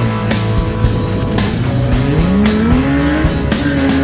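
Off-road 4x4 competition vehicle's engine revving up, rising in pitch from about a second and a half in, mixed with rock background music with a steady beat.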